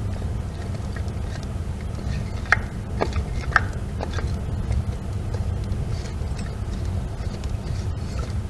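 Steady low rumble with three short, sharp clinks of hard objects striking, about two and a half, three and three and a half seconds in.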